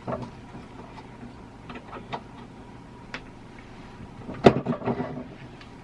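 Antique door knob and latch hardware being worked by hand: scattered small clicks and knocks, with a louder run of clicks about four and a half seconds in.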